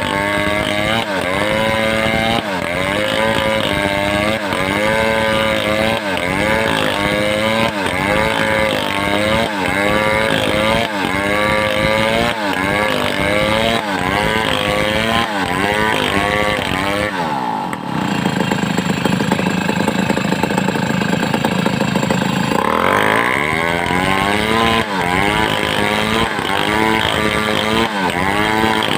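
Home-assembled two-stroke chainsaw cutting through wood, its engine note rising and falling about once a second under the load of the cut. About two-thirds of the way in, the note drops and gives way to a steadier rushing sound for about five seconds, then climbs back and the rise and fall resumes.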